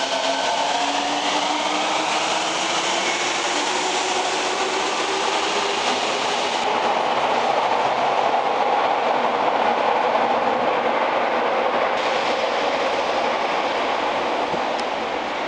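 Fukuoka City Subway Hakozaki Line train pulling away from the station: its motors whine in a rising pitch as it accelerates over the first few seconds. Then comes a steady running noise as it heads into the tunnel, loudest about eight to ten seconds in and slowly fading near the end.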